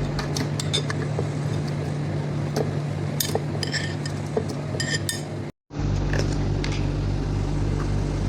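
Scattered clinks and taps of a spoon and containers against glass and crockery as smoothie ingredients are handled, over a steady low hum. The sound cuts out abruptly once about five and a half seconds in.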